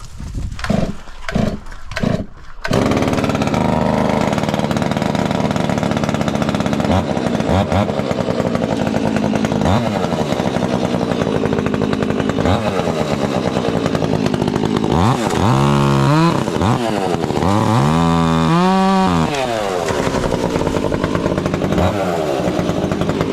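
An engine sputters in short bursts, catches about two and a half seconds in and runs steadily, then is revved up and back down twice near the end.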